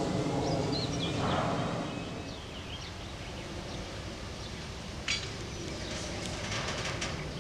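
TGM6D shunting diesel locomotive's engine running for about the first two seconds, then dropping away. After that, birds chirp over the low rumble, with a sharp click about five seconds in and a few more clicks near the end.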